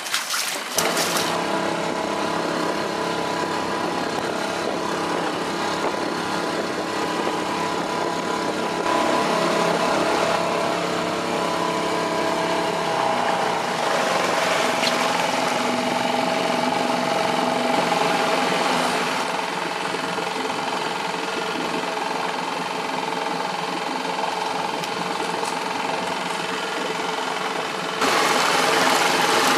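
Boat motor running steadily, its pitch and level shifting a few times, and suddenly louder near the end.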